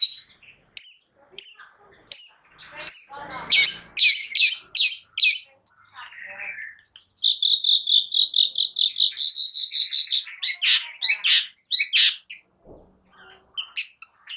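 Long-tailed shrike (cendet) singing a loud, varied song. It gives repeated sharp, downward-slurred calls at about two a second, breaks into a fast trill lasting a few seconds in the middle, then returns to quick, varied notes.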